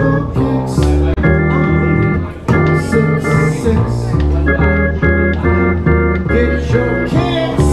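Live jazz trio playing the instrumental ending of a song: an organ plays short repeated chords in a stop-start rhythm over an upright bass.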